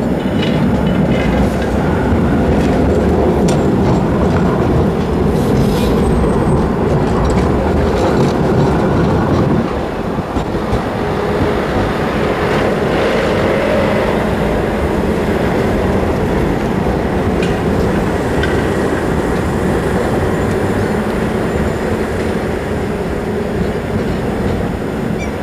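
Trams rolling close by over a junction of tram tracks, their wheels rattling over the rail crossings and points, with a city bus passing too. Loudest for the first ten seconds, then a little quieter.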